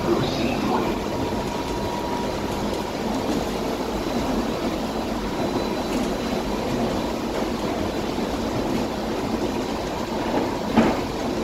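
Steady running noise heard inside the cabin of the DFW Skylink, a rubber-tyred Bombardier Innovia automated people mover, cruising along its guideway. A single sharp knock comes near the end.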